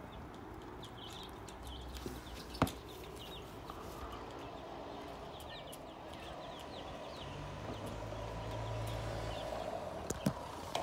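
Bantam chicks peeping, many short high peeps through the whole stretch. A single sharp click comes about a quarter of the way in, and two smaller ones near the end.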